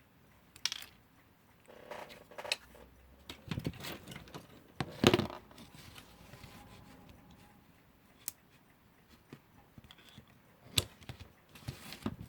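Small metal parts of a vintage alarm clock movement being handled and pressed together by hand: scattered clicks, taps and scrapes, the loudest about five seconds in.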